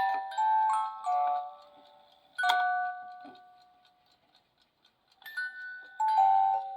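ERNES German alarm clock's musical alarm playing a tinkling melody of separate bell-like notes. The tune dies away partway through, is near silent for about a second and a half, then picks up again about five seconds in.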